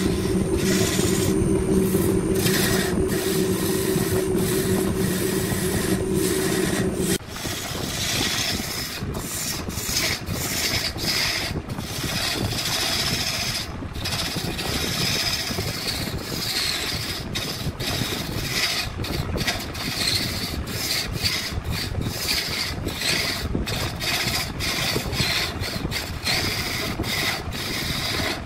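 Woodworking: a steady machine hum for about the first seven seconds cuts off suddenly, followed by repeated rasping strokes against wood, irregular at first and then about two a second.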